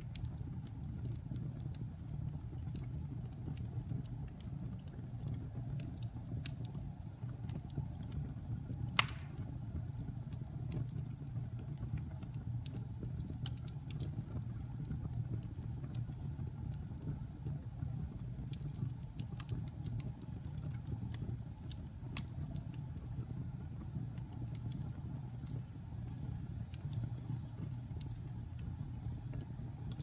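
Wood fire burning in a fireplace: frequent small crackles and ticks over a steady low rumble, with one louder pop about nine seconds in.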